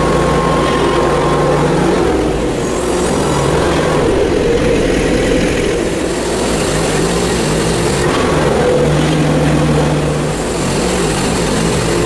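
Hud-son HFE30 portable bandsaw mill's engine running steadily, its pitch dropping slightly a few seconds in and rising again near the end as the load changes.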